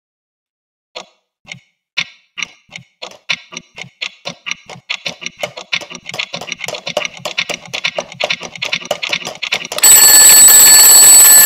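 Clock ticking that starts about a second in, slow at first, then speeds up steadily into rapid ticking. Near the end it gives way to the loud, steady ringing of a mechanical twin-bell alarm clock.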